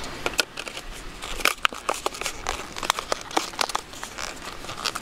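Thin plastic packaging crinkling as it is handled, an irregular run of small crackles and clicks.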